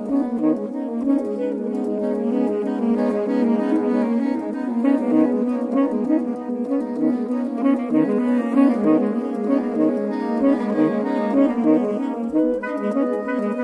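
Saxophone quartet playing: a held low note carries under quick, busy lines from the upper saxophones.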